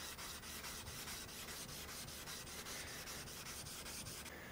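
A flattening stone rubbed in quick, even back-and-forth strokes over the 3000-grit side of a 3000/8000 combination whetstone: a faint, steady stone-on-stone scraping as the whetstone's surface is lapped flat.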